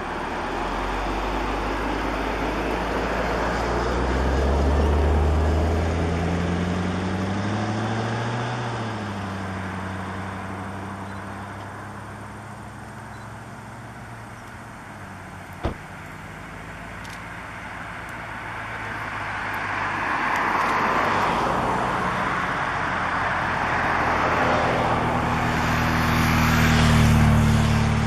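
Motor vehicles on a nearby road: an engine rising in pitch as it pulls away over the first several seconds and fades, a single sharp click midway, then another vehicle coming up with a steady low engine note and tyre noise that grows loudest near the end.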